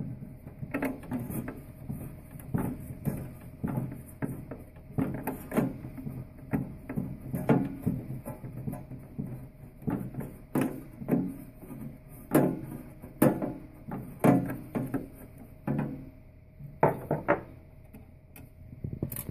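An 11/32-inch nut driver turning the four mounting nuts off a control circuit board. Metal clicks and light taps come irregularly, about two a second.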